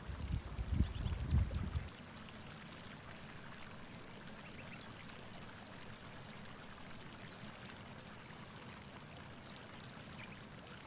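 Hot spring pool bubbling and splashing. A loud, uneven low rumble runs through the first two seconds, then gives way to a faint steady hiss.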